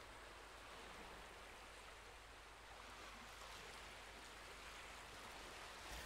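Near silence: a faint, steady hiss.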